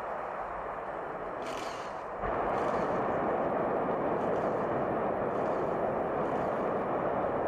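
Soyuz rocket engines at liftoff: a steady, dense rushing noise that jumps abruptly louder about two seconds in and stays there.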